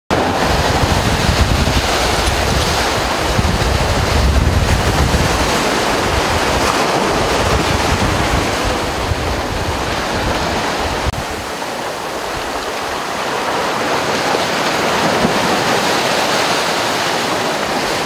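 Surf breaking and washing over a rocky shore: a steady rush of water, with a deep rumble under it that drops away abruptly about eleven seconds in.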